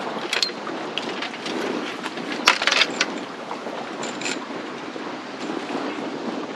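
Strong wind and choppy water making a steady rushing noise, with a few sharp knocks about half a second in, a louder cluster around two and a half seconds in, and another near four seconds.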